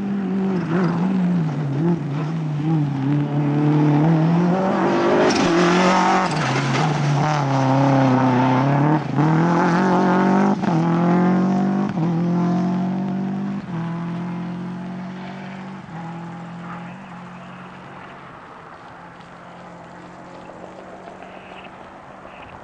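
Rally car engine driven hard, its pitch rising and falling through gear changes and lifts, with a few sharp cracks at its loudest as it passes, then fading steadily into the distance.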